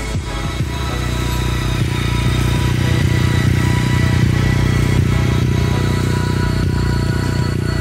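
Kawasaki W800's air-cooled parallel-twin engine running steadily, growing louder over the first few seconds, mixed with background music.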